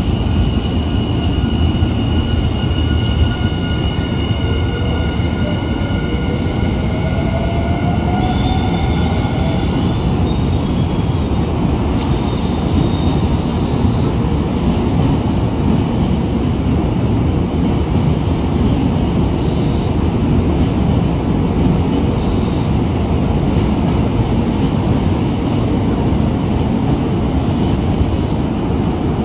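Electric commuter train moving through the station: a steady low rumble of wheels on rails, with high steady squealing tones over roughly the first ten seconds and a rising whine a few seconds in.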